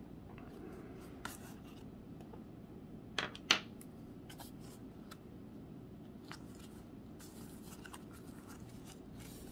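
Faint sliding and light snapping of a Bicycle playing-card deck being thumbed through and spread between the hands, with two sharper card snaps about three seconds in, over a low steady background hum.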